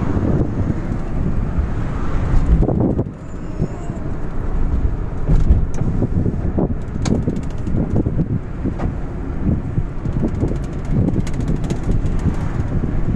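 Road noise inside a moving van: a low rumble of tyres and engine with irregular gusts of wind buffeting the microphone. It dips briefly about three seconds in.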